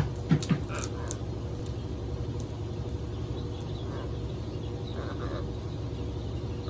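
Scarlet macaw biting at nut pieces on its wooden perch: a few sharp clicks and one louder knock in the first second, over a steady low rumble and faint hum.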